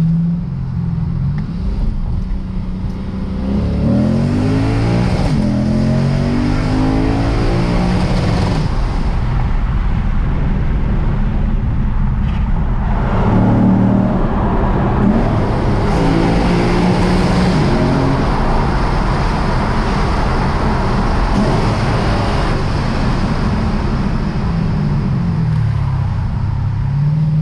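Lexus RC F's 5.0-litre V8 accelerating hard in a tunnel, its pitch climbing through the gears in two pulls, with steady road noise underneath.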